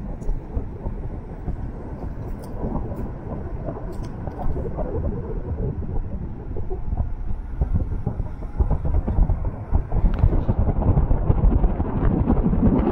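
Low, steady rumble of a car driving, with road noise and wind on the microphone, growing louder near the end.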